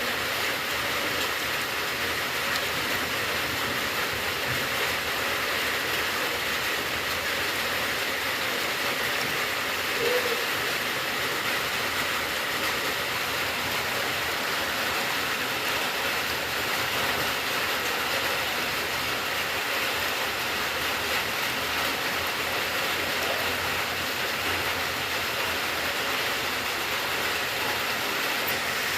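Rain falling steadily, an even unbroken hiss, with one brief slightly louder spot about ten seconds in.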